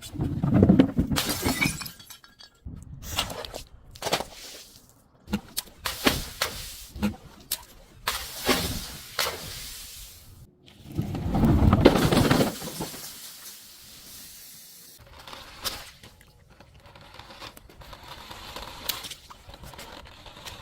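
Glass bottles being smashed, breaking and shattering repeatedly with crunching shards. There are two heavier crashes, one at the start and one about halfway through, between many sharper cracks and clinks.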